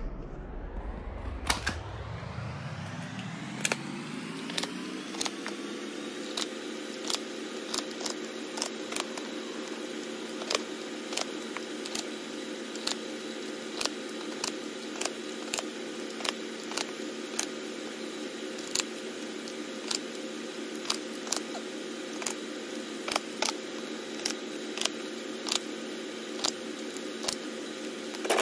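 Sharp plastic clicks, one or two a second, as security sensor tags are snapped onto shoes, over a steady machine hum that rises in pitch over the first few seconds and then holds.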